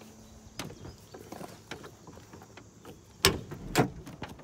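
A fabric carry bag with straps handled on a truck's cloth seat: a few light knocks and rustles, then two louder thumps about half a second apart a little over three seconds in.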